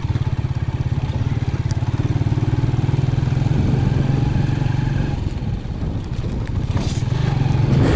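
Motorcycle engine running steadily under way at an even cruising speed, seen from the rider's seat, with a fast regular putter.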